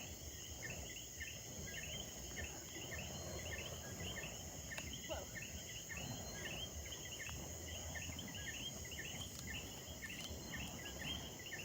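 Insects chirping in a steady chorus: several short, high chirps a second over a continuous high-pitched drone.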